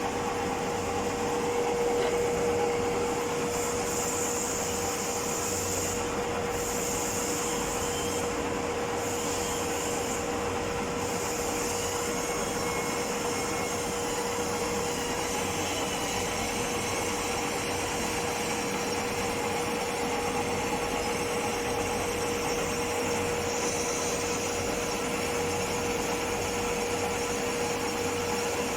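Metal lathe running steadily with a constant hum and a steady whine, a higher hiss coming and going over it while it machines a metal casting.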